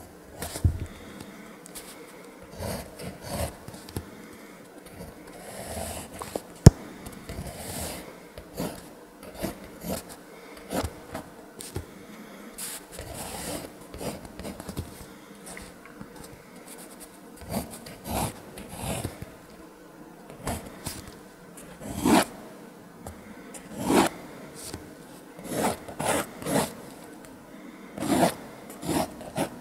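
Pentel Graph Gear 1000 mechanical pencil scratching over Fabriano sketchbook paper in short repeated strokes as lines are sketched. The strokes grow louder near the end and come about every two seconds. There is one sharp click about seven seconds in.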